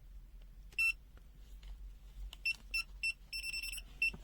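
FUYI FY129C multimeter's buzzer sounding short high beeps: one about a second in, then a quick irregular run from about halfway, with one beep held longer. This is its non-contact voltage (NCV) alert.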